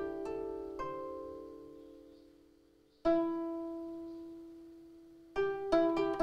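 Japanese koto plucked with finger picks. A few notes ring out and fade slowly, a single note is struck about three seconds in and left to die away, then a quick run of notes starts near the end.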